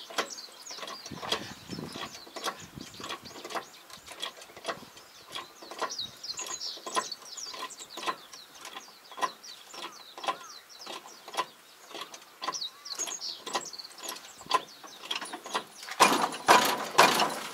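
Hand tools clicking and knocking irregularly on the undercarriage of a crawler sprayer whose track has come off, while it is being worked loose for repair. Near the end there is a louder, rougher stretch of scraping noise.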